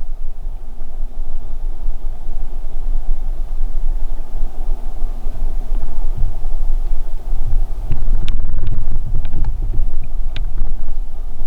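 Wind buffeting the microphone: a steady low rumble, with a few light clicks and rustles about eight to ten seconds in.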